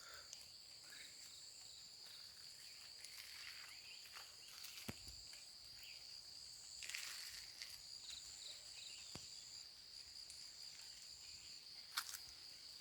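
Faint, steady high-pitched drone of insects, with a few scattered sharp clicks.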